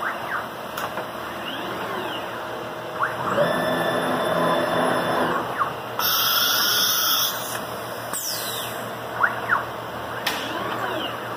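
CNC router with a 10 hp HSD automatic tool-changer spindle, its motors whining in rising and falling glides as the head moves and the spindle speeds up and slows. A loud burst of compressed-air hiss comes about six seconds in, at the tool change. Steady noise from the vacuum pump and dust collector runs underneath.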